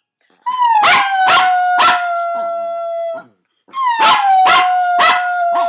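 Dog barking in short sharp barks over a long howled note, twice. Each howl starts high, drops slightly and holds for about two and a half seconds, with three or four barks over it.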